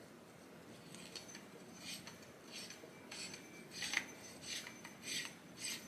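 Faint metal scraping and clinking as a condenser microphone is screwed onto its threaded stand mount, with a short scrape about every half second from about two seconds in.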